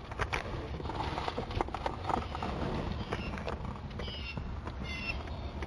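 Handling noise from a handheld camera moved around inside a pickup cab: irregular clicks and knocks over a low rumble, with a few short high chirps in the second half.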